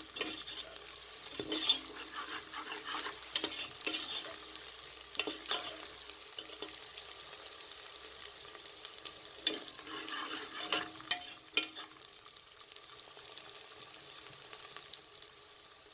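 Sliced onions and ginger-garlic paste frying in hot oil in a pressure cooker: a steady sizzle, with a spoon stirring and scraping the pot in scattered clicks. The sizzle eases off over the last few seconds.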